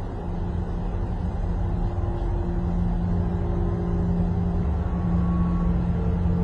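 An engine running steadily: a low rumble with a few held tones, slowly growing louder, with higher tones coming in near the end.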